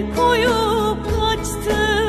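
Instrumental background music: a held melody line with vibrato over changing low bass notes.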